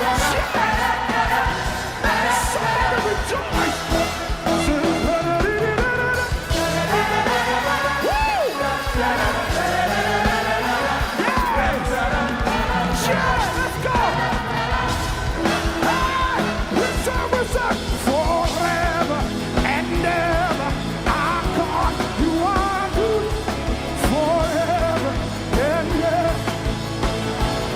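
Live gospel praise music: a band with drums and bass plays an upbeat song while singers and the congregation sing loudly, with shouts from the crowd.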